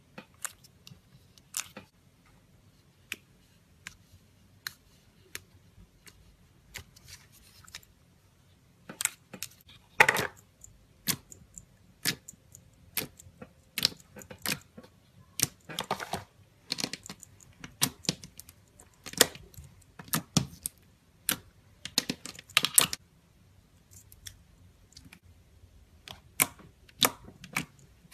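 Slime being worked by hand or stirred, giving irregular sharp clicks and sticky pops. They are sparse at first, then come thicker and louder, up to a few a second, with a few longer squelches.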